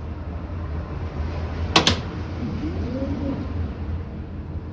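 Denka inverter washing machine's belt-free direct-drive motor running a wash agitation stroke over a steady low hum. There is one sharp click about two seconds in, then a motor whine that rises and falls as the drum turns, running normally on its newly replaced clutch.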